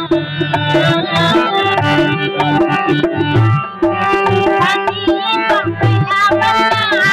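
Rajasthani folk song music: a pitched melody line over a steady hand-drum rhythm.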